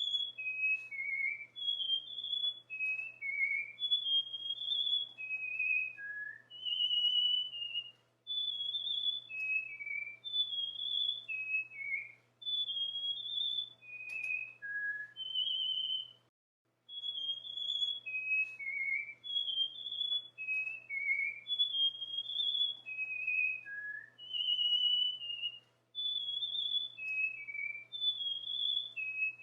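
Cockatiel whistling its song: a phrase of short, clear whistled notes, some gliding up or down, repeated about every eight seconds with brief pauses between. A faint low hum runs underneath.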